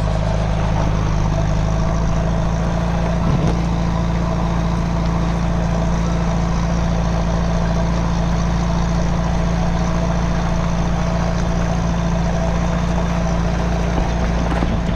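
An engine running steadily: a constant low drone with a rushing noise over it, cutting in suddenly at the start.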